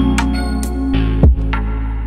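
Background electronic music with a deep bass line and a drum beat.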